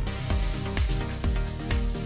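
Background electronic music with a steady, punchy drum beat.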